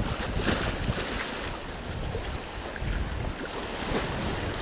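Rushing whitewater of a river rapid around an inflatable raft, with wind buffeting the microphone in uneven low gusts.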